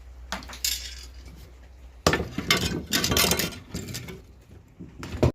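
Metal grill-brush heads and loose handles clattering and clinking as they are handled and piled together: a few knocks, then a dense burst of clatter, and one last knock just before the sound cuts off.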